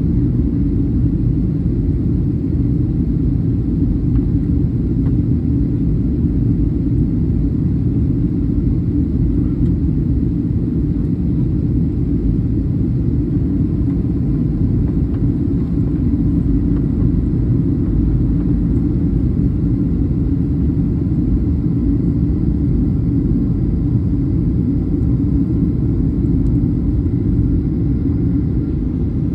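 Steady low rumble inside the cabin of a Boeing 737-800 in flight, heard from a window seat over the wing.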